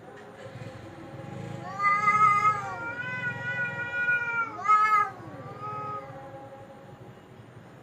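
Cat yowling (caterwauling): a long, drawn-out, wavering wail builds up about two seconds in and is held for a couple of seconds. A shorter, sharp rising-and-falling yowl comes near five seconds, then quieter moans trail off.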